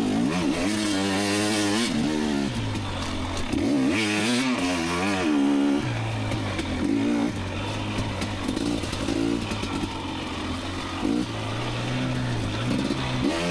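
KTM 250 XC two-stroke dirt bike engine under a rider's throttle, revving up and dropping back over and over, its pitch rising and falling every second or so as power is fed on and off on a slippery trail.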